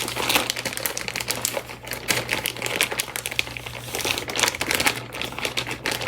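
An ingredient bag crinkling and crackling continuously as it is handled and pressed on, while it is being forced closed and won't shut.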